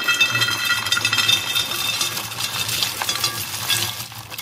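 A dry mix of roasted chickpeas, nuts, seeds and sugared almonds poured from a bowl onto a ceramic plate: many small hard pieces clattering and clinking on the plate.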